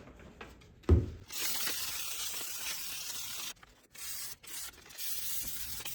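600-grit abrasive rubbing on the steel of an axe head, brightening the surface for bluing: a steady hiss with two short breaks, after a single thump about a second in.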